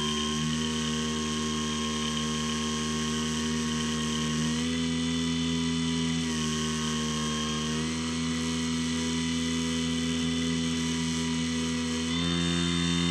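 Skywalker X7 flying wing's electric motor and propeller running steadily. The pitch steps up and down several times as the throttle is changed.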